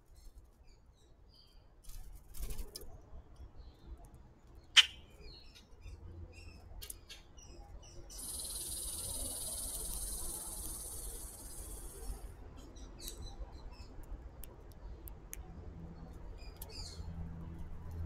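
Backyard birds at a feeder chirping faintly and sporadically, with a single sharp knock about five seconds in and a steady high buzz lasting about four seconds near the middle.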